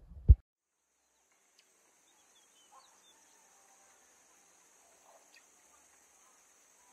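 A single sharp knock, a glass perfume bottle set down on a wooden table. Then the original sound is muted and replaced by a faint nature sound effect: a steady high hiss with a few small scattered chirps.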